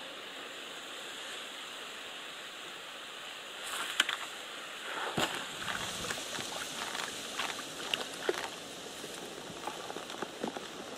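A hooked crucian carp splashing at the water's surface as it is played in on a float rod: steady wind-and-water hiss at first, then a sharp splash about four seconds in followed by a run of smaller splashes and sloshes.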